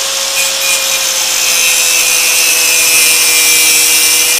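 Angle grinder cutting into a steel inline fuel filter canister held in a vise: a loud, steady grinding hiss over the motor's whine, its pitch sagging slightly as the cut goes on. It cuts off abruptly at the end.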